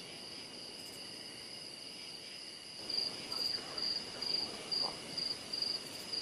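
Crickets chirping at night: a steady high trill throughout, joined about three seconds in by a pulsing chirp repeating two to three times a second.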